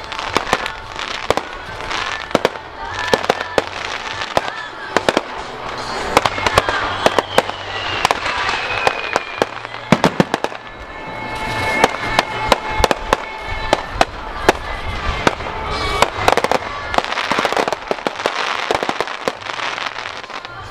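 Aerial fireworks shells bursting in quick, irregular succession, a steady run of sharp bangs and crackles.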